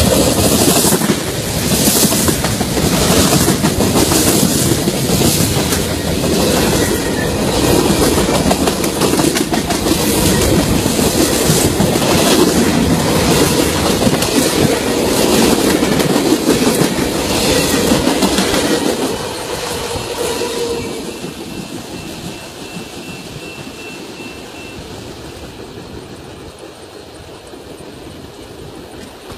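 Freight cars of a manifest freight train rolling past close by, wheels clacking on the rails in a steady rhythm. About 19 seconds in the last cars go by and the sound fades to a fading rumble as the train moves away.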